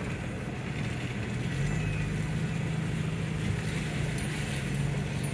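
Pickup truck's engine running steadily with tyre noise on a dirt track, heard from inside the cab; the engine note steps up slightly about one and a half seconds in.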